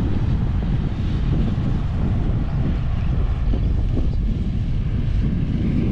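Wind buffeting the microphone: a steady, heavy low rumble with no distinct tones.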